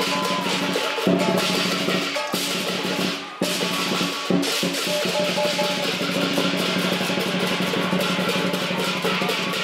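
Lion dance percussion: a large drum beaten in quick, dense strokes with clashing cymbals ringing over it, pausing briefly about three seconds in before carrying on.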